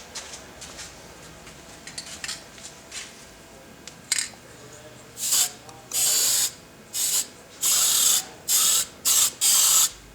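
Aerosol can of gloss black paint sprayed in short hissing bursts, about eight of them, starting about four seconds in. Before the bursts there are faint light clicks and scrapes.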